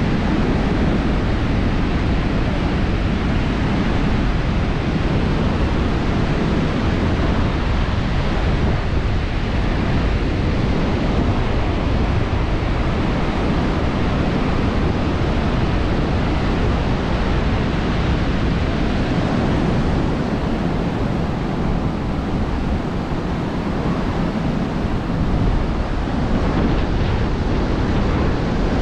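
Sea surf washing onto a sandy beach as a steady rushing noise, with wind on the microphone.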